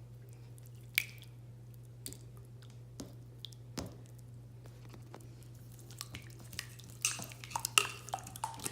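Jiggly barrel slime worked by hand, making wet clicks and pops like water dripping: a few scattered ones at first, then a quick run of them near the end.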